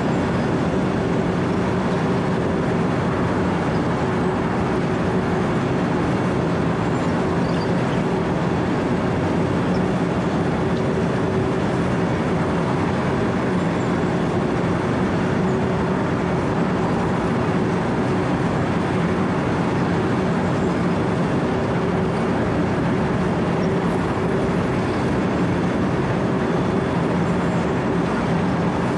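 Wirtgen W 120 CFi cold milling machine running steadily under load, its diesel engine and milling drum cutting soft asphalt at about 80 feet a minute. A loud, unbroken din with a constant hum beneath it.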